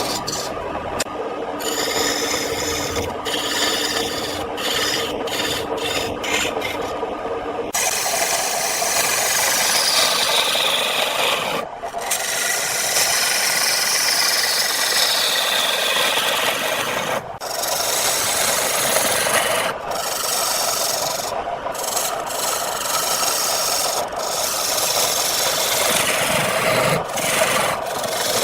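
Wood spinning on a lathe with a turning tool or abrasive scraping continuously against it, the pitch of the cut sliding down now and then and breaking off briefly several times as contact is lifted.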